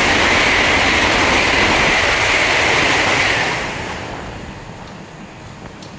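Great Western Railway train passing through the station at speed without stopping: a loud rushing noise with a steady high hiss, dying away from about three and a half seconds in as it clears the platform.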